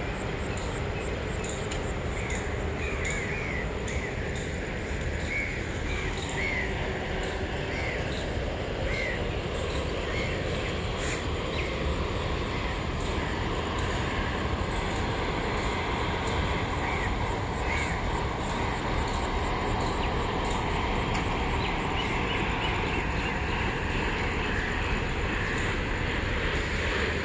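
Crows cawing again and again, short calls coming in clusters through the first two-thirds, over a steady low background rumble.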